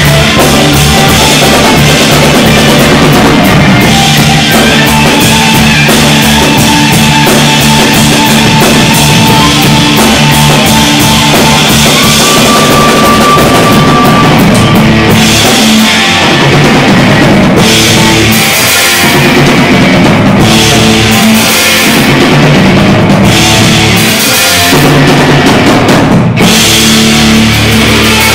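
Live rock band playing loud: a drum kit with kick drum and cymbals driving under distorted electric guitars and bass. In the second half the playing turns choppy, with short stop-start accents.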